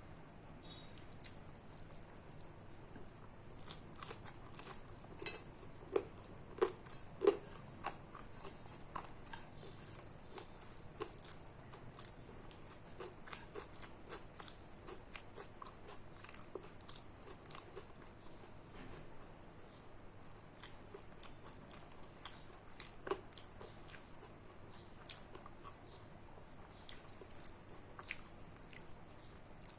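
Close-up chewing and mouth sounds of someone eating rice and curry: a run of wet smacks and clicks with occasional crunches. A few louder ones come about five to seven seconds in.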